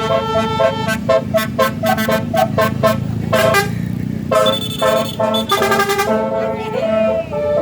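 Telolet Basuri multi-tone bus horn playing a quick melody of short, changing notes, breaking off briefly partway and then resuming, ending with a few single held notes. A steady low rumble runs underneath.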